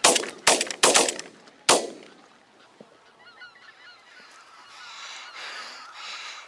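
A rapid volley of about five shotgun shots within two seconds, two hunters firing at geese overhead. Then a flock of wild geese calling overhead, growing louder toward the end.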